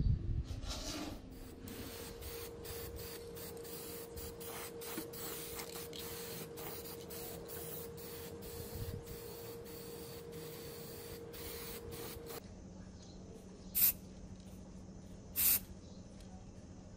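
Aerosol spray-paint can spraying the TV's front bezel in many short hissing bursts, then three separate, louder half-second bursts near the end.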